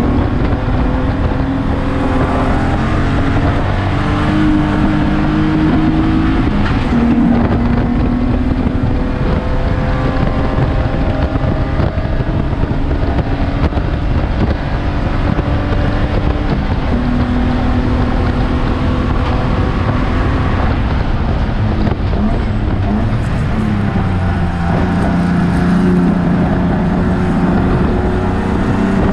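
Spec3 BMW E36 race car's straight-six engine at racing speed, heard from inside the stripped cockpit. The engine pitch climbs and then drops sharply several times as the driver shifts and brakes, over loud road and wind noise.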